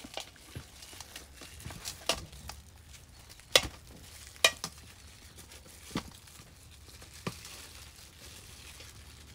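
Scattered clicks and knocks of marinated pork cheeks being handled and pushed onto a skewer for grilling, with two sharper knocks near the middle.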